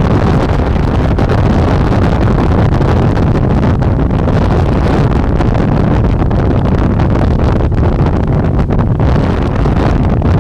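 Heavy wind buffeting the microphone while riding a Rumble HENZO V5 electric bike, a steady rushing and fluttering rumble with no engine note.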